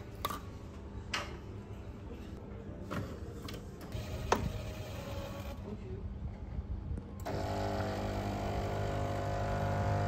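Nespresso capsule coffee machine: a few sharp clicks as the pod is put in and the head closed, then the machine runs with a low steady hum that turns into a louder, even motor-and-pump drone about seven seconds in as coffee brews into the cup.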